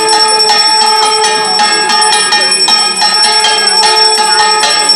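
A bell rung rapidly and without pause, several strikes a second, its ringing tones held throughout, as during a Hindu puja.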